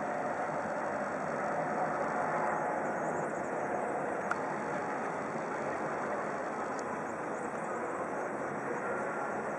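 Steady hum of city street traffic and vehicle noise, with no distinct events standing out.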